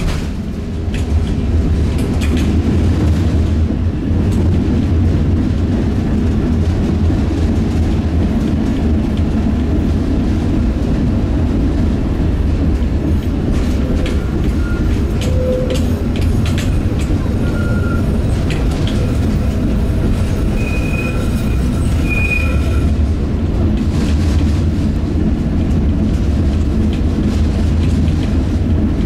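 Tram running along street track, heard from on board: a steady low rumble of wheels and running gear on the rails, with a few brief high squeals around the middle.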